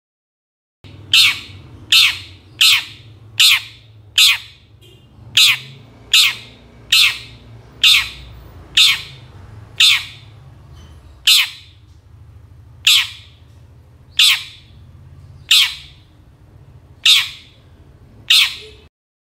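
Long-tailed shrike (cendet) giving a series of about seventeen short, sharp calls. They start about a second in, come quickly at first, then space out to about one every second and a half, and stop abruptly near the end.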